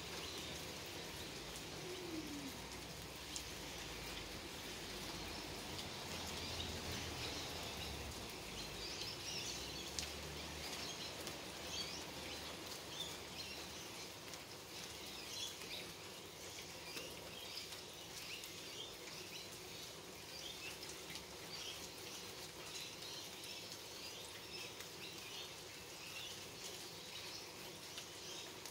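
Steady rain falling on garden shrubs and lawn, with birds chirping in many short calls from about nine seconds in.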